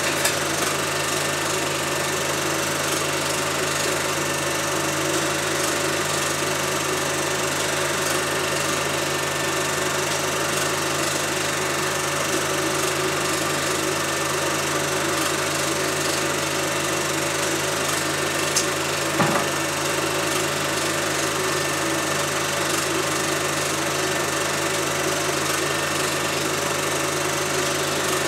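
Film projector running: a steady mechanical whirr and hum from its motor and film transport, with one brief tick about two-thirds of the way through.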